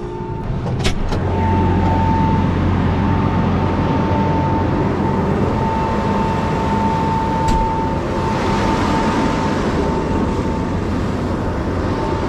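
A machine engine running steadily with a constant high whine. There are a couple of sharp clicks about a second in and another about halfway.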